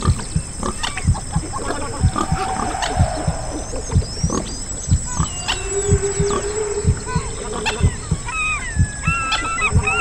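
A layered mix of animal sounds: irregular short low pig grunts throughout, under the tonal calls and sweeping glides of humpback whale song. Past the middle there is one long held low note, and near the end a quick run of rising and falling calls.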